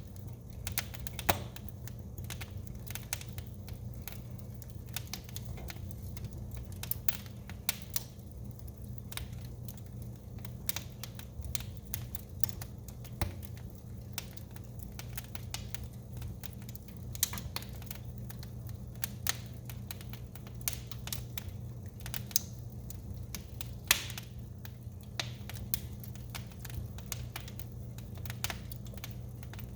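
A real wood fire crackling in a fireplace: irregular sharp pops and snaps over a steady low background, with a few louder pops standing out.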